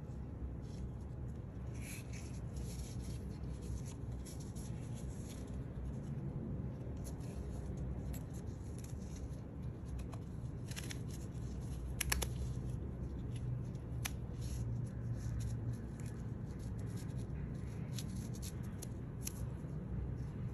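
Hands handling an Apple Watch Ultra on its woven Alpine Loop band with a titanium hook: fabric rustling and a few sharp clicks as the band is fastened around the wrist. The loudest is a quick cluster of clicks about twelve seconds in. A steady low hum lies underneath.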